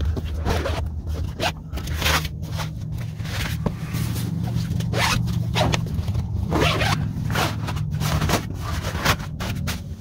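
Rooftop tent zippers being pulled and canvas rustling as someone climbs in and moves around on the mattress: a string of short scraping strokes over a steady low hum.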